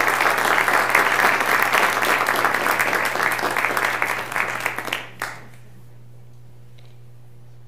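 Audience applauding: many hands clapping together, which fades and stops about five seconds in.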